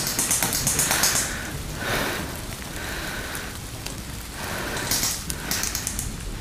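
Rain falling on woodland foliage: a steady hiss that swells in irregular louder spells.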